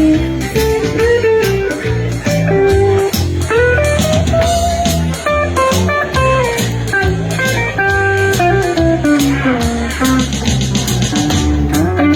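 Live blues band in an instrumental break: a lead guitar solo with bent notes over bass and drums.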